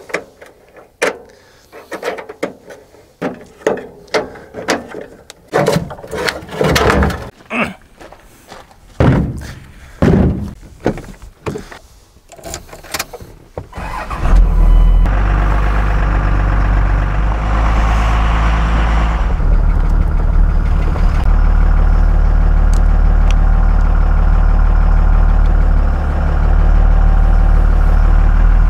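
Wrench clinking and clicking on a car battery's hold-down bolt in short separate strokes. About halfway through, a Cummins diesel pickup engine takes over, running steadily with a low drone.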